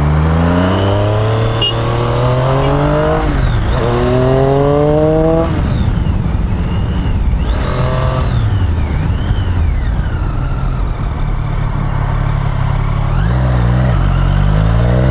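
Triumph Street Triple's three-cylinder engine accelerating hard, its note rising through a gear change about three seconds in, then dropping off at about five and a half seconds with the pitch falling as the throttle is closed, before rising again under acceleration near the end.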